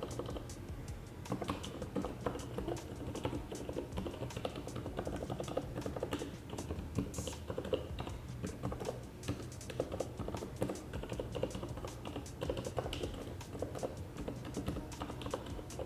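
Lubed Cherry MX Red linear keyboard switches being pressed in quick, irregular succession: a steady patter of soft key clicks and bottoming-out taps, with no tactile or clicky sound.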